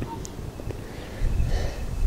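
Outdoor wind rumbling on the microphone, uneven and low, with a brief soft rustle about one and a half seconds in.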